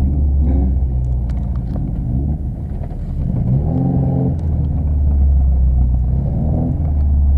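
Car engine running with a steady low drone, its note rising in pitch three short times as it revs up.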